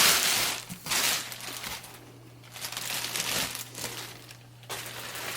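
Large statue box and its packaging being handled, rustling and crinkling in several bursts with short pauses between, over a faint steady low hum.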